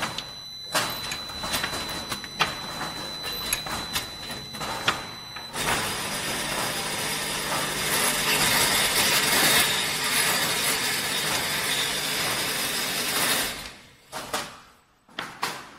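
Automatic thermocouple-tip and paper-tube assembly machine working. A run of clicks and knocks over a faint high steady whine, then from about five seconds in a loud steady rushing noise for about eight seconds, which drops away into a few separate knocks.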